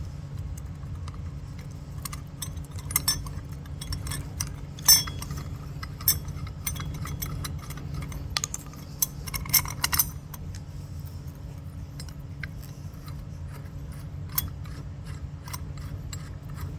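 Small metal parts clinking, clattering and scraping as they are handled and fitted together by hand, in irregular clicks with a few louder knocks, over a steady low hum.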